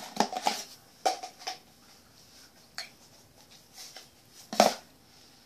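A few light knocks and clacks of plastic slime containers being moved and set down on a tabletop, spaced out by a second or so, the loudest about four and a half seconds in.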